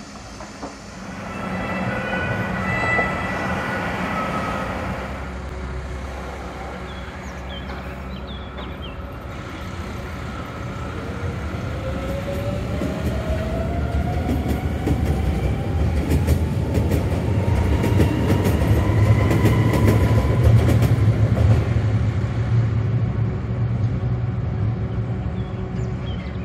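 Hamburg S-Bahn electric train pulling out of the station: its motors give a whine that climbs steadily in pitch for about ten seconds as it picks up speed, over the rumble of wheels on the rails. It is loudest about three-quarters of the way through, then fades as the train leaves. A brief passage of higher tones comes near the start.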